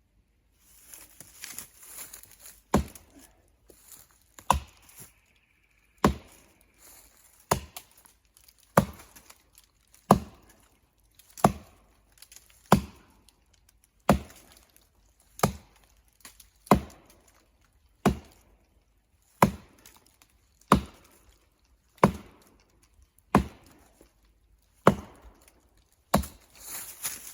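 Axe chopping into a standing tree's trunk in steady, evenly paced strokes, about eighteen blows roughly every 1.3 seconds, working through the holding wood of a tree that has hung up.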